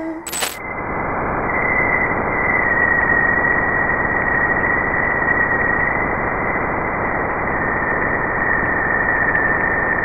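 Sonified spacecraft radio data from Jupiter: a dense, steady crackling hiss like wind, with a thin steady whistle riding above it, coming in abruptly with a click about half a second in. Scientists believe the sound comes from charged particles in the planet's magnetosphere.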